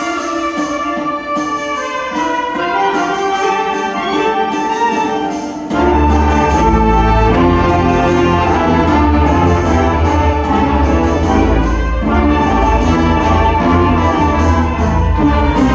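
A school wind ensemble playing live, with trumpets and trombones carrying the music. About six seconds in, the low brass comes in heavily and the band gets louder.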